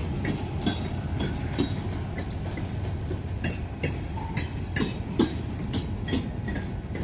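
Freight cars of a grain train rolling past close by: a steady low rumble of wheels on rail, broken by irregular clicks and clanks from the wheels and couplings.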